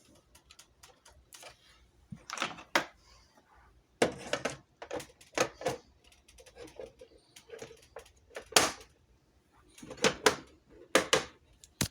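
Irregular clicks and knocks from handling a plastic exit sign and emergency light combo unit while its backup battery is being plugged in.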